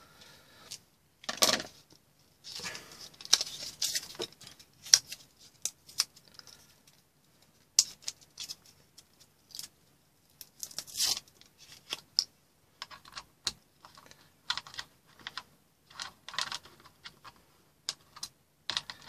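Scattered small clicks, scrapes and rustles as hands handle coin-cell batteries, their plastic blister packaging and a multimeter's plastic battery compartment and cover.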